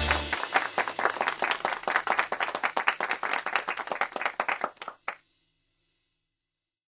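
Hands clapping in applause, a dense patter of sharp claps that thins out and stops about five seconds in.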